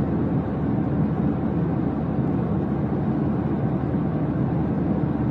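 Steady low rumble of a jet airliner cabin in cruise, even and unchanging.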